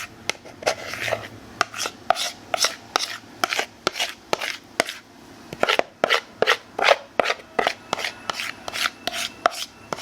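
Spatula scraping and knocking against a mixing bowl in quick, repeated strokes while thick pumpkin bread batter is worked out of the bowl. There is a short lull about five seconds in.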